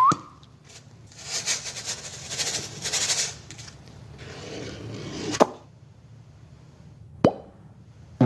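Sound effects being made by hand: a sharp pop, then about two seconds of rustling, scraping noise, then two more single pops about two seconds apart.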